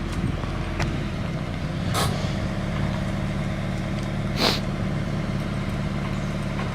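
Scion FR-S's 2.0-litre flat-four engine idling steadily on its stock exhaust header. Two brief hisses come about two and four and a half seconds in.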